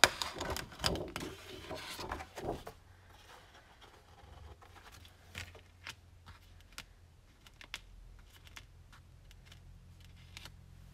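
Large 12x12 patterned scrapbook paper sheets rustling and sliding as they are handled and laid down, loudest in the first two to three seconds. After that, only faint scattered clicks and light paper touches as a sheet's edge is picked at.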